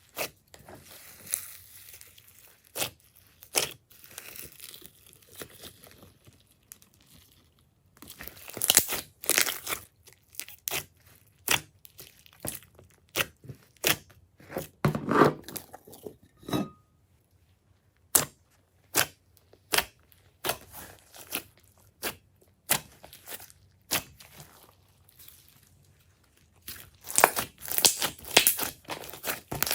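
Glossy slime being squished, stretched and poked by hand, giving irregular sticky clicks and pops. It breaks into dense bursts of crackling about eight seconds in and again near the end.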